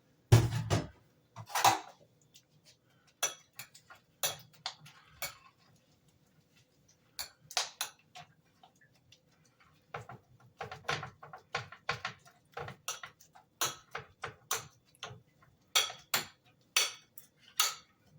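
Kitchen dishes and utensils clinking and knocking in irregular short strikes, as bowls and tools are handled while preparing meatball ingredients.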